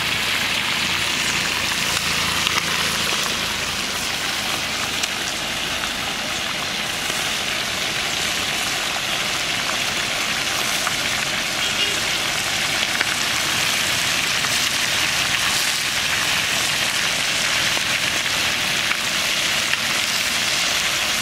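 Chicken pieces frying in hot ghee in a large iron kadai, a steady sizzle throughout.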